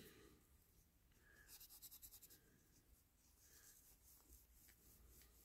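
Very faint rubbing of wire wool over a small steel model-car axle, a short run of quick strokes about a second and a half in, to polish it up; otherwise near silence.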